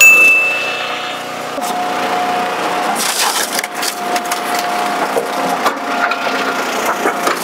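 Eastonmade 12-22 commercial log splitter driving its box wedge through a round of northern red oak: a sharp crack at the start, then repeated cracking and splintering as the wood splits apart, over a steady machine hum.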